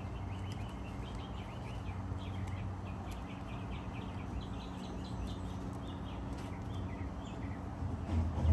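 Small birds chirping in quick runs of short chirps over a steady low hum; a louder low rumble starts near the end.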